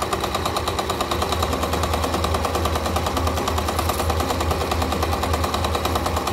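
Old domestic electric sewing machine running steadily, the needle stitching through cotton fabric in a rapid, even mechanical rhythm over a low motor hum.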